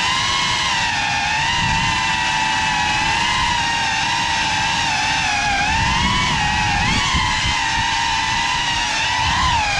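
Small FPV quadcopter's motors whining in flight, a high pitched whine that holds fairly level, wavering with throttle, dipping and recovering about six seconds in and rising near the end.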